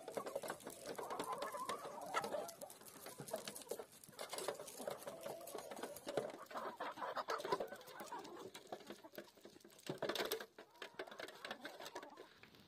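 A flock of domestic chickens, hens and roosters, clucking continuously as they peck at food.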